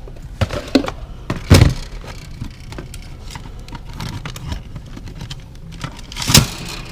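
Metal clunks and knocks of a cash box being worked out of a vending machine, with a sharp knock about a second and a half in and another near the end.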